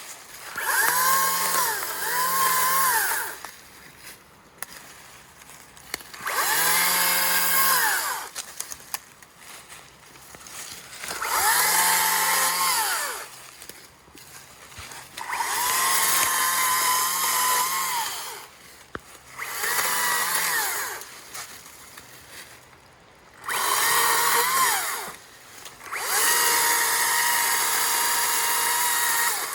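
Makita 18-inch brushless battery chainsaw cutting wood in about seven separate bursts. Each burst spins up to a whine that sags and recovers as the chain bites, then winds down; the last one is still running at the end.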